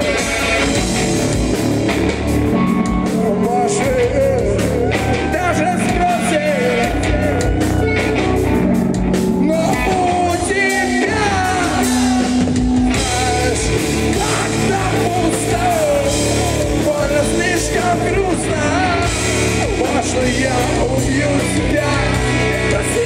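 Rock band playing live, with loud guitars, bass and drums under a singer's voice.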